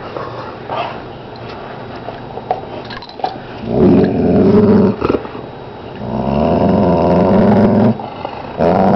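Three long, low growls, the first about four seconds in, the next at about six seconds, another near the end, after a few faint clicks.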